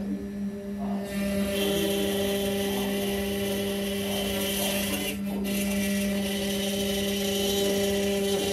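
Desktop CNC mill's spindle running with a steady hum while its small end mill cuts into a wooden board. A cutting hiss comes in about a second and a half in and drops out briefly around five seconds.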